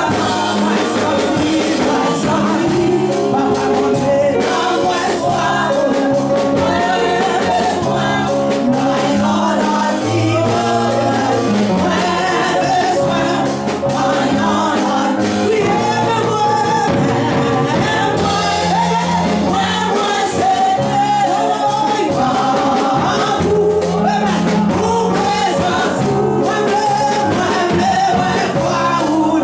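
Gospel music with group singing over a band with a steady beat.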